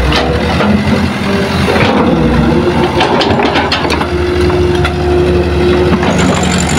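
Heavy construction machinery's diesel engine running steadily, its pitch shifting as it works, with several sharp knocks.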